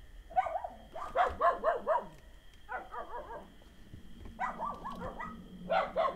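Dog barking in about five short runs of quick barks and yips.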